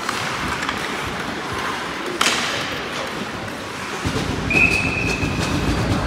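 Ice hockey game sounds: skates scraping and rumbling on the ice, with a sharp crack of a stick or puck about two seconds in. About four and a half seconds in, a referee's whistle blows once, briefly.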